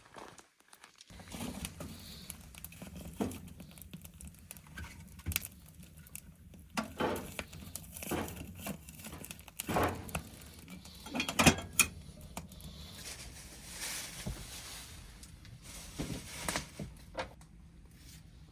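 Cooking sounds: irregular clicks, knocks and crackles, with a steady low hum underneath from about a second in.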